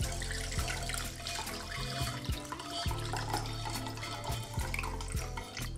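Beef cooking juices pouring from a tagine through a fine mesh sieve into a ceramic bowl, a steady trickle of thick liquid, with background music underneath.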